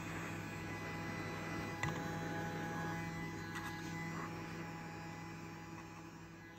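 Steady electrical mains hum over faint hiss, fading out slowly towards the end, with one faint click about two seconds in.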